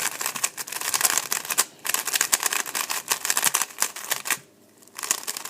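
A Rubik's GAN collaboration speed cube being turned quickly by hand: rapid plastic clicking and clacking of its layers, in three runs broken by short pauses about a second and a half in and near the end.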